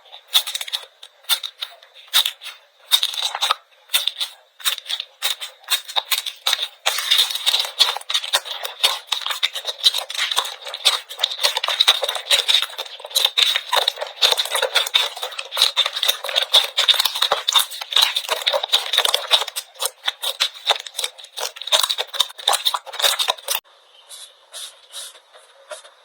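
Slime being squeezed, poked and stretched by hand, a dense run of crackling pops and sticky clicks that thins to quieter, sparser clicks near the end.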